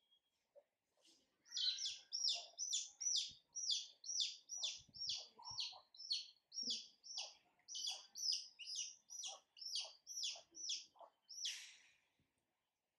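A bird calling in a rapid run of short, high, falling chirps, about three a second, that stops a second or two before the end, followed by a brief hiss.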